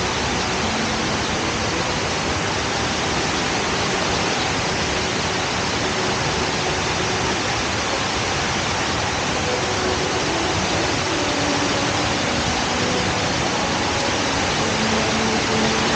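Steady, even roar of water from Jewel Changi Airport's indoor waterfall, the Rain Vortex, pouring down into its pool.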